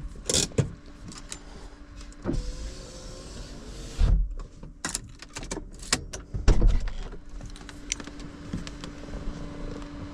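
Flatbed tow-truck equipment working while a car is loaded: a steady motor hum sets in about two seconds in, under repeated metal clanks and clicks and two heavy thumps.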